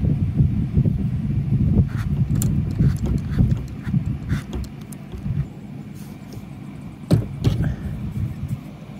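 Hands handling the metal action of an AEA Challenger .357 bullpup air rifle on a towel: irregular dull knocks and rubbing, with a few sharp metal clicks about two seconds in and two more around seven seconds.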